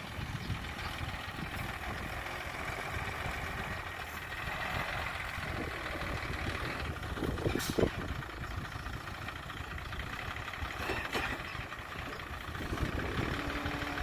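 A vehicle engine running steadily with a low, fast-pulsing rumble. A sharp clank comes about seven and a half seconds in, and a weaker one about eleven seconds in.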